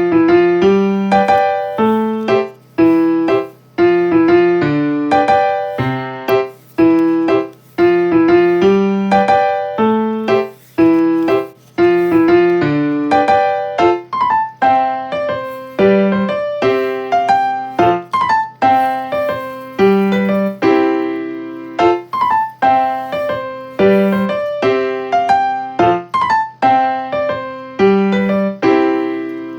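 Background music: a gentle piano or electric-piano tune of single struck notes, each fading away, at an unhurried, even pace.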